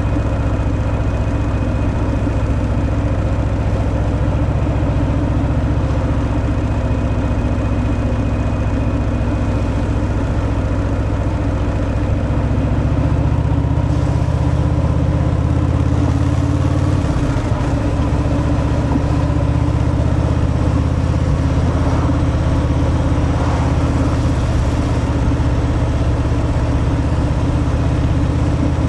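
Harley-Davidson Fat Boy's Milwaukee-Eight 114 V-twin running through its stock exhaust, a steady low engine note. About seventeen seconds in the note dips briefly and then settles at a different pitch.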